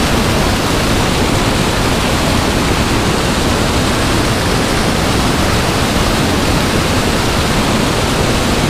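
Spillway outflow churning into a river as turbulent white water: a loud, steady rush of water.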